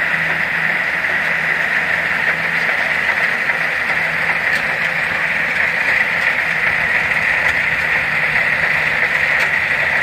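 A pair of Kubota DC-60 combine harvesters running steadily as they cut rice: an even, hissing machine drone that holds constant without a break.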